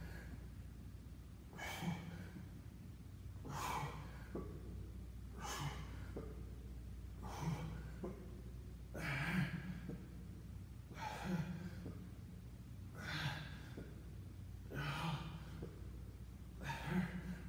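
A man breathing hard through a set of leg raises: a forceful exhale about every two seconds, nine in all, one per repetition.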